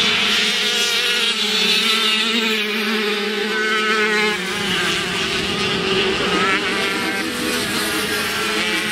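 Several 50cc two-stroke racing motorcycles revving hard, their high-pitched engine notes overlapping and rising and falling as they accelerate and back off through the turns.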